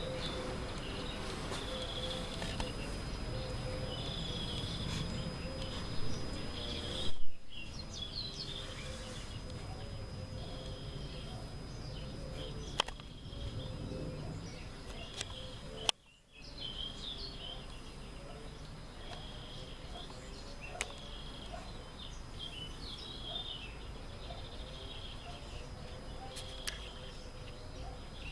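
Outdoor ambience: small birds chirping in repeated short bursts over a steady background hum. A couple of loud brief knocks sound about six to seven seconds in.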